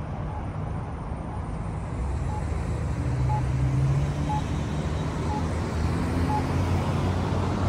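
Road traffic at an intersection: vehicle engines and tyres running steadily, louder from about two seconds in as cars pull through the junction. A short beep repeats about once a second.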